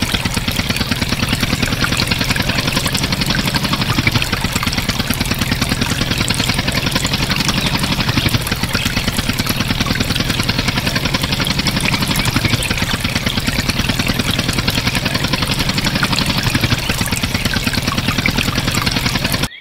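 Small motor-driven miniature water pump running steadily, with the water jet from its hose splashing into a filled trough.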